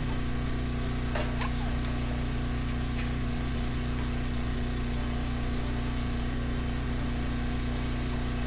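An engine idling steadily, with a low, even hum, and a few light clicks or knocks over it about a second in and again around three seconds.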